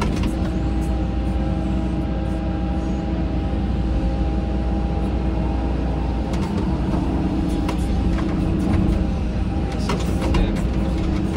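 Caterpillar 313 hydraulic excavator running steadily under work, its diesel engine and hydraulics giving a constant hum, heard from inside the cab. A few light knocks come around the middle and again near the end.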